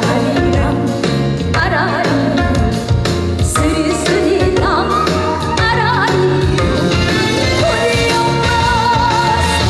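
Live trot song: a woman singing with strong vibrato over full band accompaniment with a steady beat.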